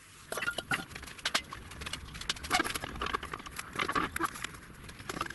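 Irregular knocks and clicks of handling in a metal workshop, a few of them brief metallic clinks.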